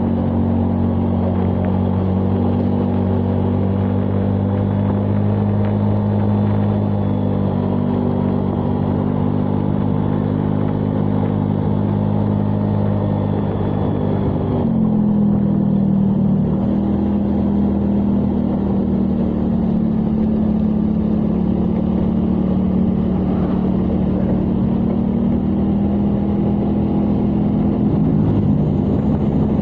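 Engine of a road vehicle running steadily under way, its note changing abruptly once about halfway through, as at a gear change.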